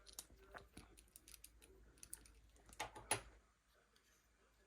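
Faint scattered clicks and light taps from handling the small metal thread-tension assembly of a sewing machine. A few louder clicks come about three seconds in.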